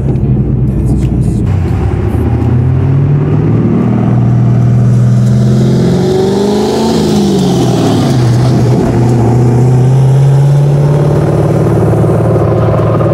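Exhaust of an RWB widebody Porsche 911 running alongside at road speed, heard through an open car window; the engine note climbs about a third of the way in, wavers down and up in the middle, then holds steady, with a rush of wind and road noise mid-way.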